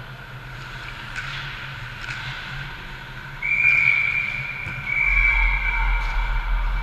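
Ice hockey referee's whistle, two long steady blasts beginning about three seconds in, stopping play after a scramble at the net, over the background noise of the rink.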